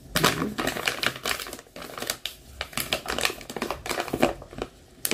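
A paper coffee bag crinkling and crackling as its top is folded and rolled down to close it, with a single sharp tap near the end.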